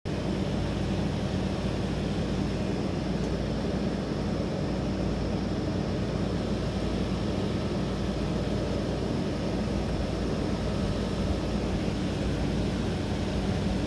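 Steady outdoor night ambience: an even rushing noise with a low hum underneath, unchanging throughout.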